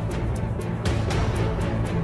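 Background music with a steady percussive beat over sustained low tones.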